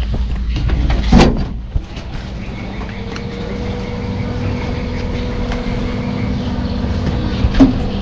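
Motorcycle engine running steadily, with a sharp knock about a second in and another near the end.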